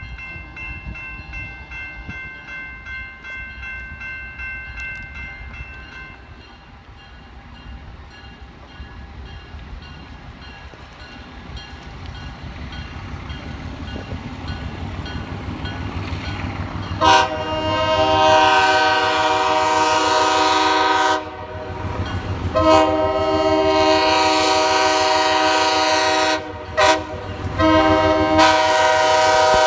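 A railroad crossing signal rings steadily for the first few seconds while an approaching train's rumble slowly grows. About 17 seconds in, the locomotive's multi-chime air horn blows the grade-crossing signal, long, long, short, long, loud and close as the engine reaches the crossing.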